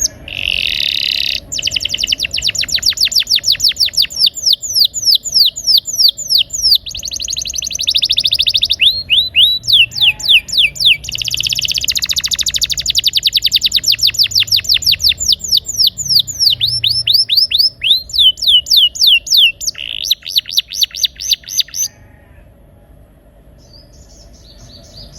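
Canary singing a long rolling song: rapid trills of repeated sweeping notes that change speed, broken by a few short pauses. The song stops near the end.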